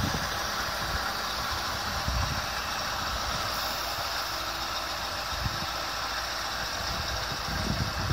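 Scania 730 truck's V8 diesel engine idling steadily.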